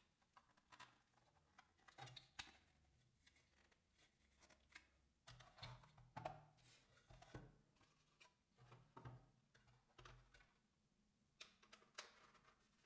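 Faint, irregular clicks and light scrapes of hard plastic toy parts being handled and fitted together: a plastic tube pushed into a plastic stand, then a plastic helipad piece being handled near the end.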